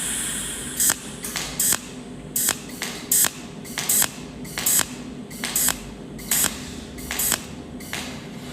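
Cold welding machine firing a spot weld on a spring: a regular run of short, sharp arc pulses, each a brief hissing zap, about one every 0.8 seconds. A longer hiss comes right at the start.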